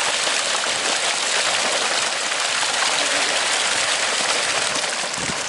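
Water rushing out of a plastic barrel and down a wet tarp chute into a pond, with a load of live fish sliding and splashing along it; a steady rush that eases a little near the end.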